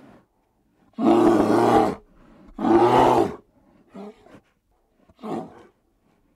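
Lion roaring: two loud roars of about a second each in the first half, followed by two short, fainter grunts.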